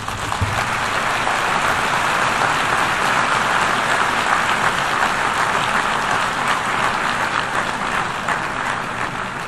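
A large audience applauding at the end of a speech. The clapping swells within the first second, holds, and thins out near the end.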